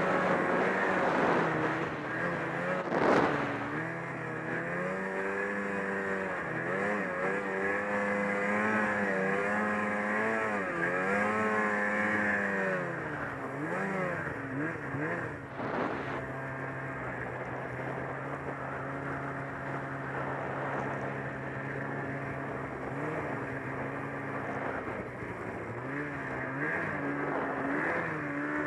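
Ski-Doo snowmobile's 800 H.O. two-stroke twin running under throttle while riding through snow, the revs rising and falling over and over, then holding steady, and climbing again near the end. A sharp knock about three seconds in and another about halfway.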